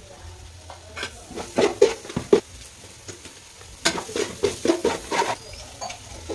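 Metal spatula stirring and scraping masala in an aluminium pot, in two runs of quick strokes about a second apart, with the frying masala sizzling underneath.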